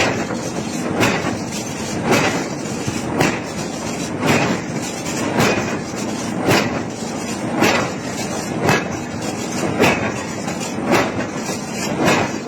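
Heavy hammer blows striking hot iron during forging, evenly paced at about one blow a second, about a dozen in all, over a steady machinery hum.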